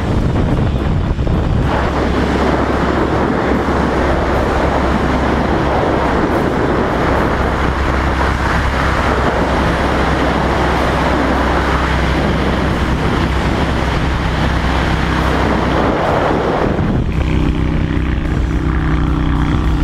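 Honda Shadow 750's V-twin engine running through a loud modified exhaust while riding, under heavy wind and road noise. About three seconds before the end the wind rush falls away and the engine's steady note stands out.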